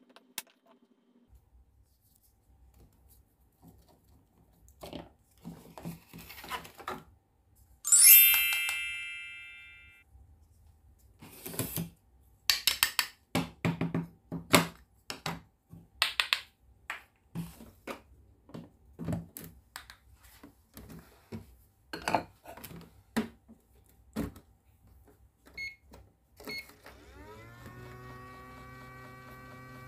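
A bright chime rings out about eight seconds in and dies away. Then come a string of clicks and knocks as a toy knife cuts through toy fruit on a cutting board. Near the end a button click sets a toy microwave running with a steady electric hum that rises briefly in pitch, then holds steady.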